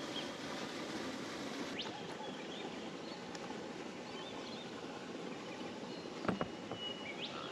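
Outdoor ambience on a river: a steady hiss with faint, scattered bird chirps. There is a sharp knock about six seconds in and a lighter one near two seconds.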